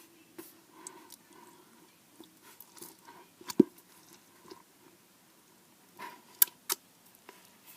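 Slime being handled: scattered squishy clicks and pops, the loudest about halfway through and two sharp snaps near the end.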